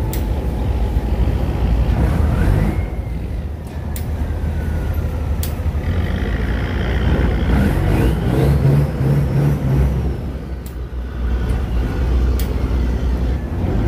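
Boat engine running steadily, with a strong low rumble and a few faint tones gliding up and down over it.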